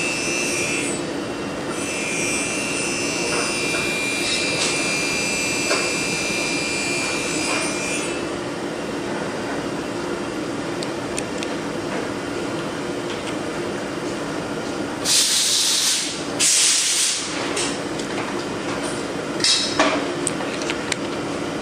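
Steady mechanical drone with a constant hum, with two loud rustling scrapes about two-thirds of the way in and a few small clicks near the end.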